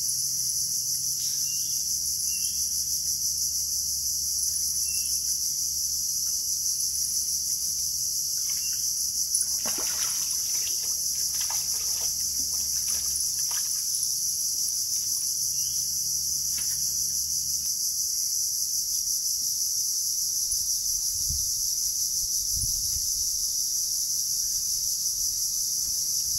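A steady, loud, high-pitched insect chorus. About ten seconds in, a run of splashes lasting a few seconds as a hooked sea catfish thrashes at the water's surface by the bank.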